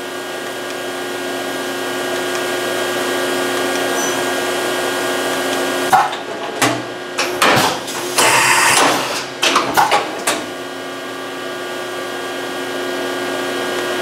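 Excel CNC milling machine running a program with a steady motor hum of several tones. About six seconds in, a run of clunks and clicks and about a second of compressed-air hiss come from its pneumatic tool-changer mechanism, then the steady hum resumes.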